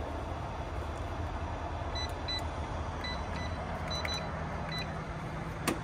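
Fuel-island card reader keypad beeping as keys are pressed: about seven short, high beeps in quick pairs and singles, over a steady low engine rumble. A sharp click near the end.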